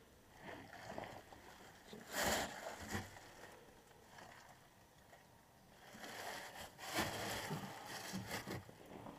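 Rustling and scuffing of someone moving about and handling the camera, in a short bout about two seconds in and a longer, busier one from about six seconds to near the end.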